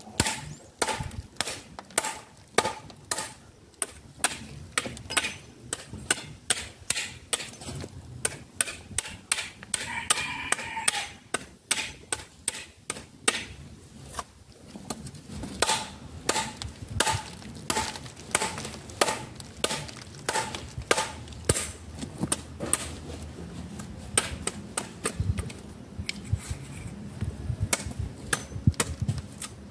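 Repeated chopping blows of a hand tool stripping thick bark off a log, roughly one to two strikes a second, many with a short ringing note.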